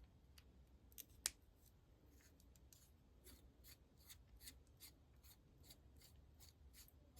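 Faint series of small clicks and scrapes from a plastic diamond-painting placer and its packaging being handled, with one sharper click about a second in.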